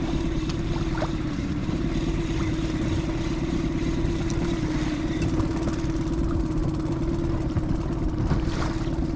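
Fishing boat's engine running steadily, a constant low hum with a droning tone that doesn't change.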